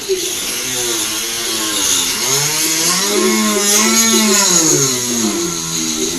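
A man making engine-like sound effects with his voice: a continuous buzzing hum whose pitch swoops up in a long arch about two seconds in and slides back down near the end, like a motor revving.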